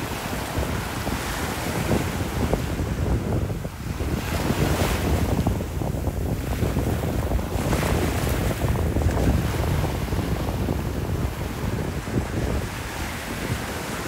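Small waves breaking and washing up a sandy beach, swelling a few times, with wind rumbling on the microphone.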